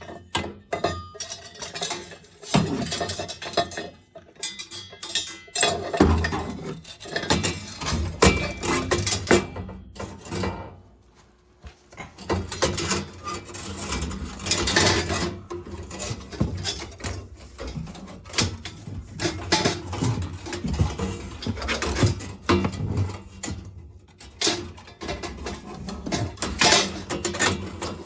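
Metal boiler parts clinking and knocking irregularly as they are handled and fitted back together.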